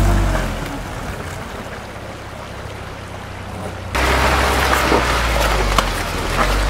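UAZ Patriot SUV's engine running as it drives through mud, fading away over the first few seconds. About four seconds in, a closer, louder engine drone follows, with mud and water splashing under the wheels and a few sharp knocks.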